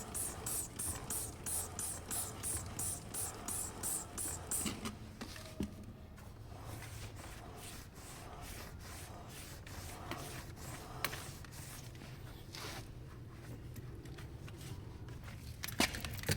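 Quick, rhythmic scrubbing with soapy water, about three to four hissing strokes a second for the first five seconds, then quieter rubbing and handling with a few sharp clicks.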